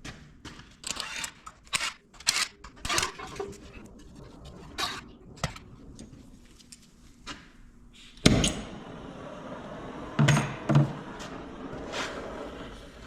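Tools and metal engine parts clinking and knocking, a quick run of sharp clicks and knocks. About eight seconds in a steady noise starts suddenly, and two heavy knocks follow close together.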